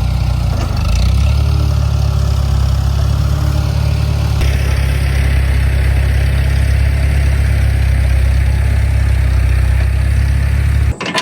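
Tractor engine running steadily and loud, then stopping suddenly near the end.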